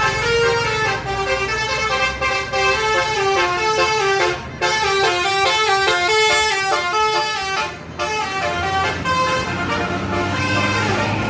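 Basuri telolet bus horn playing a fast tune of short stepped notes, with two brief breaks, over a low rumble.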